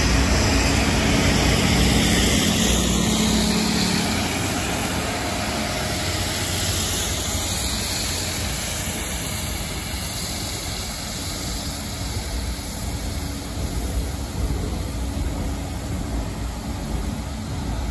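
Diesel-hauled rail wash train passing close by: the locomotive's diesel engine hum fades out in the first few seconds, leaving a steady hiss of high-pressure water jets spraying the rail heads together with the rumble of the train's wheels on the rails. The whole sound slowly fades as the train moves away.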